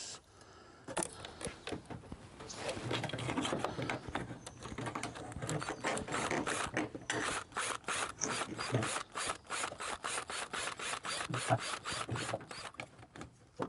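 Cordless drill with a nut-driver bit turning the worm screw of a stainless hose clamp, tightening the band around a trolling motor shaft: a fast, ratcheting clicking, in runs with short pauses.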